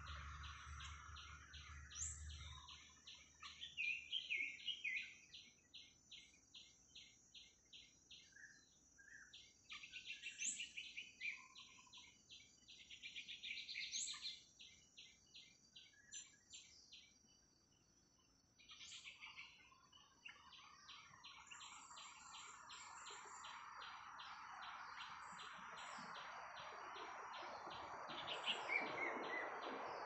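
Wild songbirds chirping and warbling in forest undergrowth, over a rapid, even chirping pulse of about four notes a second that pauses briefly around halfway. A hissing drone swells in the last few seconds.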